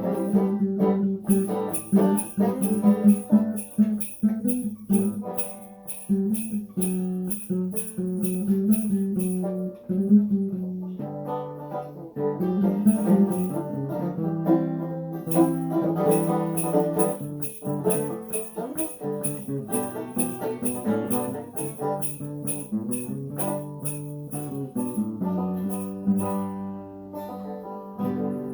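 Banjo and acoustic guitar playing an instrumental tune together, with sleigh bells shaken in a steady beat through most of it.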